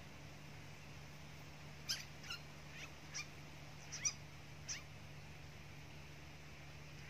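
A bird chirping: about six short, sharp notes, each rising quickly in pitch, spread over some three seconds, against a faint steady hum.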